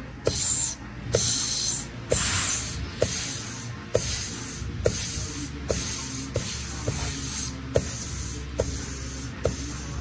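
A compressed-air blow gun is fired in about a dozen short hisses, roughly one a second, each starting with a click. It is air-checking a clutch piston in a 6L80 automatic transmission.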